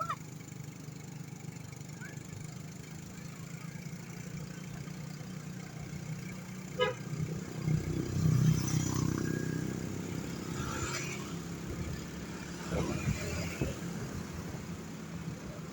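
Road traffic: a steady low hum of engines, with one vehicle passing close and loudest about halfway through.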